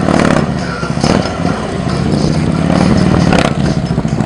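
Heavy police motorcycle's engine running at low speed through slow, tight turns, with short throttle surges near the start, about a second in, and around three and a half seconds in.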